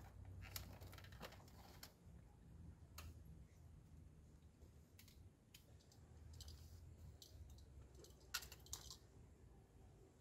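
Faint, scattered clicks and rustles of a rider handling his helmet and the luggage bags strapped to his motorcycle, with a cluster of quick clicks at the start and another cluster near the end.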